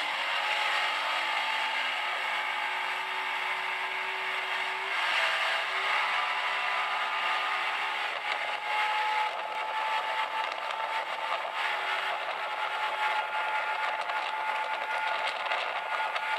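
A 150 hp outboard motor running at high speed on a planing boat, a steady engine drone over rushing wind and water, played back through a phone's small speaker so it sounds thin with no bass.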